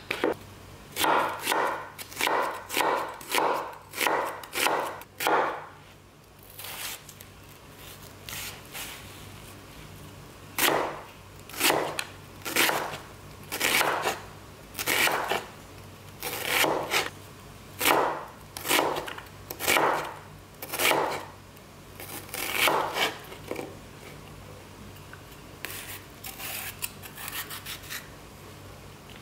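A large kitchen knife cutting a white onion on a wooden cutting board, in a series of slicing strokes that scrape through and knock on the board. The strokes come about two a second at first, then a few scattered ones, then a longer steady run. Near the end there are fainter cuts into green chili peppers.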